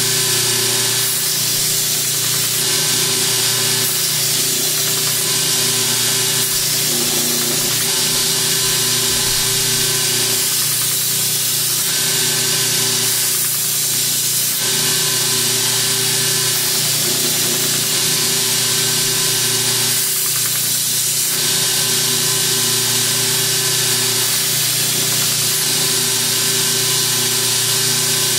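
Belt grinder running with a 180-grit belt wetted with WD-40, grinding the edge of a steel kukri machete: a steady motor hum under a continuous grinding hiss.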